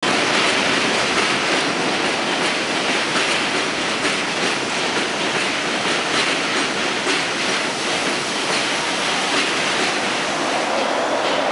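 Elevated subway train running on the steel el structure overhead: steady rail noise with wheel clatter.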